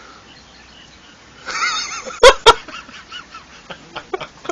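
An animal calling: a wavering call about one and a half seconds in, then two short, loud calls a quarter second apart, followed by soft clicks.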